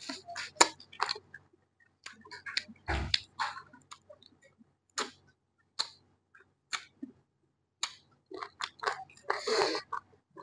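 Close-miked chewing and mouth sounds of a person eating with her fingers: irregular wet smacks and crisp clicks, with a longer smacking stretch near the end.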